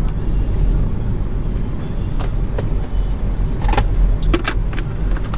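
Car interior while driving: a steady low rumble of engine and road noise, with a few scattered light clicks or rattles from the cabin.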